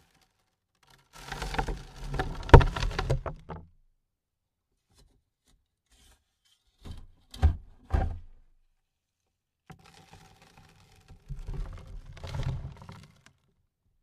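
Dirt falling onto a coffin lid: two spells of soil pattering and rattling on the lid, each a few seconds long, with three separate thuds in between.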